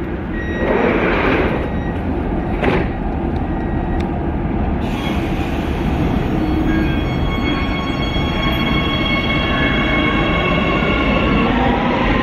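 Metro train at the platform with its electric drive whining in several steady tones over a low rumble. A sudden hiss joins about five seconds in, and near the end the tones start to rise as the train begins to pull away.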